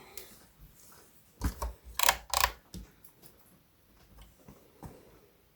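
Several sharp clicks and knocks about one and a half to three seconds in, then a few fainter ticks: a screwdriver and small metal hardware being handled while screws are fitted to a Stratocaster.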